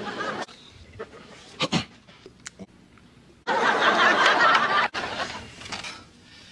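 Sitcom studio audience laughing, starting about three and a half seconds in and lasting about a second and a half.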